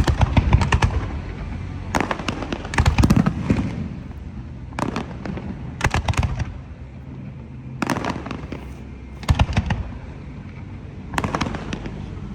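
Fireworks display: a cluster of rapid, sharp cracks and bangs every second or two, over a steady low rumble.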